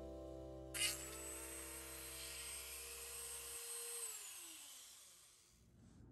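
Handheld rotary tool running with its bit in a hole in the cast aluminium bronze guard of a bayonet: a steady high whine with hiss that starts suddenly about a second in, then winds down with falling pitch after about four seconds as the tool is switched off.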